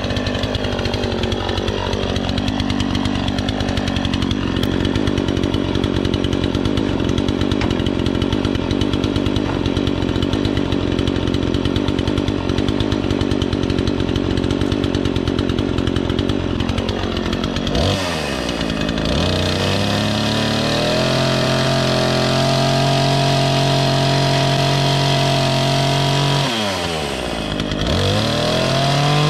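Troy-Bilt 20-inch two-stroke chainsaw running at a steady low idle, then revved up about two-thirds of the way in and held at a higher, even speed. Near the end it drops back briefly and revs up again.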